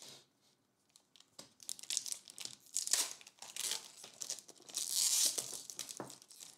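A foil-wrapped Lorcana trading-card booster pack being torn open and crinkled by hand: irregular crackling rustles that start after about a second and a half and are loudest a little before the end.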